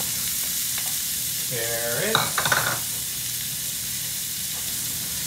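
Diced onion, garlic and celery sizzling steadily in olive oil in a hot cast-iron skillet. A few quick clacks come about two seconds in.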